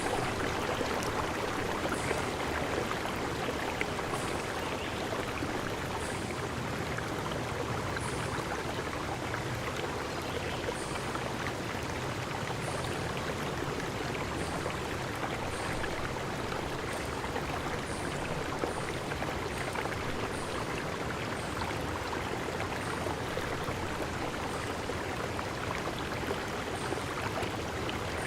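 Steady rushing of a flowing stream, with short high chirps recurring every second or two.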